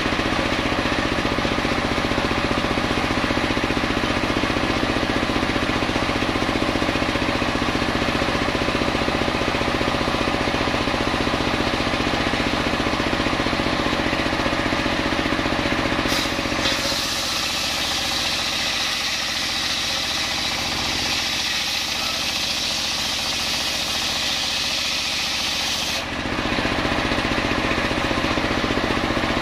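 Homemade engine-driven circular saw bench running steadily while coconut-palm logs are sawn into blocks. For about ten seconds in the second half the sound turns hissier, with less low rumble, before the steadier low running returns near the end.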